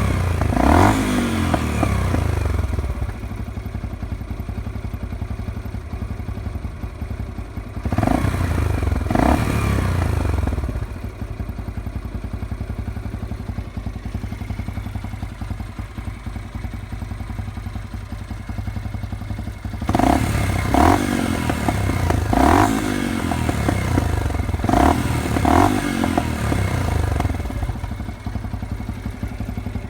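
2005 Yamaha XT 125 X's single-cylinder four-stroke engine idling, blipped with short throttle revs: a couple near the start, two about eight seconds in, and a quick series of about six starting around twenty seconds in.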